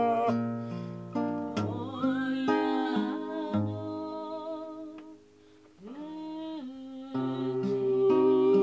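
Martinez nylon-string classical guitar being fingerpicked, with a wordless hummed melody that slides between notes and wavers on held tones. The music drops away briefly a little past the middle, then resumes.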